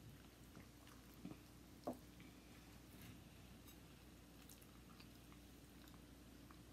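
Faint biting and chewing of a soft sandwich roll by a woman wearing new implant-retained dentures. Two small clicks stand out, about a second and two seconds in.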